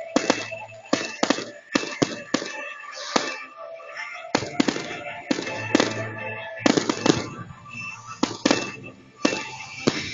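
Fireworks going off in quick succession, many sharp bangs a second, with music playing alongside.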